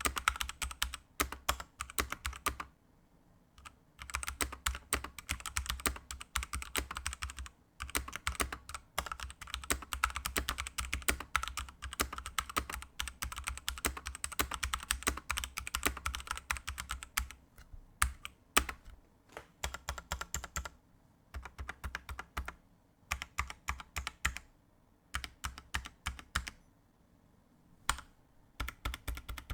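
Typing on a Ducky One 2 Mini 60% mechanical keyboard with Kailh Pro Burgundy linear switches fitted with rubber O-ring dampeners: fast runs of keystroke clacks broken by short pauses.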